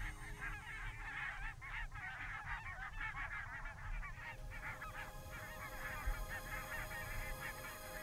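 A flock of goose-like birds calling all at once: a dense chatter of many short, overlapping honking calls over a low rumble, thinning out near the end.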